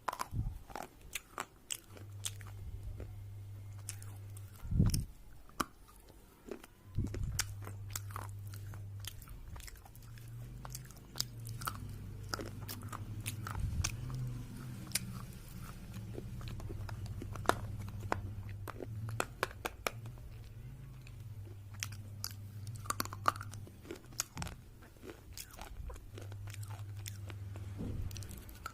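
Red slate pencils being bitten and chewed close to the microphone: many sharp, crisp crunches and snaps follow one another irregularly. There are two heavier low thumps about 5 and 7 seconds in, and a low hum comes and goes underneath.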